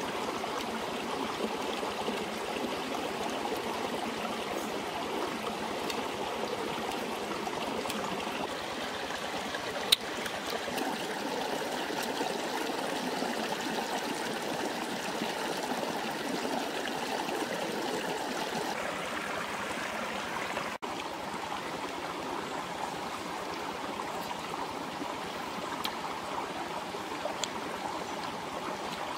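Steady rushing of a running stream over rocks, with one sharp click about ten seconds in.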